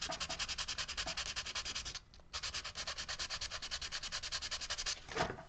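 Wood being abraded by hand along an edge: rapid, even back-and-forth scraping strokes that pause briefly about two seconds in and stop shortly before the end. The edge of the carved wood is being squared off and softened.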